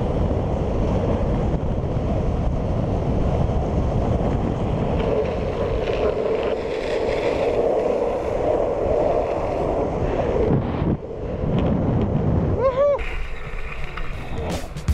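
Wind rushing over the camera microphone and the rumble of rolling over asphalt at downhill longboarding speed. After a break near the end comes a short squeal that rises and falls in pitch.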